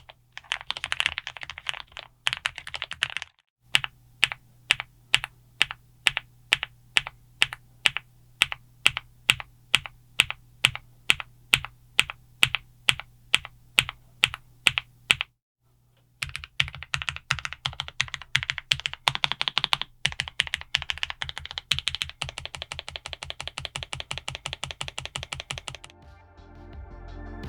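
Typing on a KZZI I75 low-profile mechanical keyboard with Kailh White Rain low-profile switches. A few seconds of fast typing give way to single key presses struck evenly at about three a second. After that, fast continuous typing runs on until music comes in right at the end.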